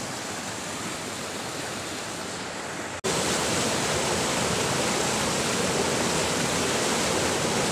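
Steady rush of river rapids, white water pouring between boulders. About three seconds in, the sound cuts off and comes back louder and closer.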